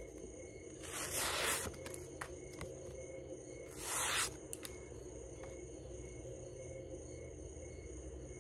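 Chris Reeve Small Sebenza 31 knife, its S45VN blade freshly sharpened freehand on ceramic stones, slicing through a sheet of paper as a sharpness test. There are two cuts, a longer one about a second in and a shorter one about four seconds in, with a few faint clicks between them, over a steady low hum.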